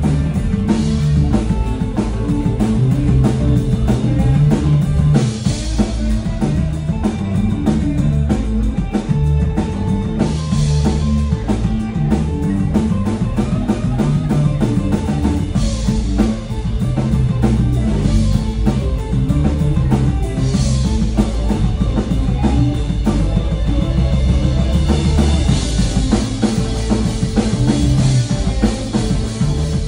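Live rock band playing: drum kit, electric guitars and bass guitar. Crash cymbal hits come about every five seconds, then a sustained cymbal wash near the end.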